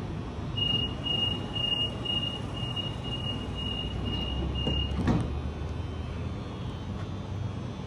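Sydney Trains Waratah double-deck train's passenger doors closing: a high door-warning beep sounds about twice a second for some four seconds, then the sliding doors shut with a thump. The train's steady low hum runs underneath.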